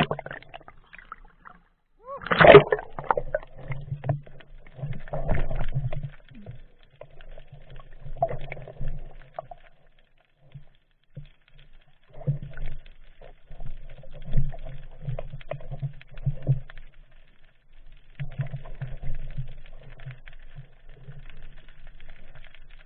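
Seawater splashing and sloshing around a half-submerged action camera at the surface, with a loud splash about two and a half seconds in, then muffled, irregular water noise and knocks as the camera sits just below the surface.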